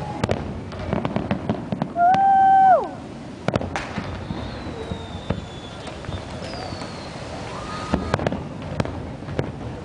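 Fireworks finale: repeated sharp bangs and crackles of shells bursting overhead. About two seconds in a loud steady tone sounds for just under a second, and a couple of faint falling whistles follow midway.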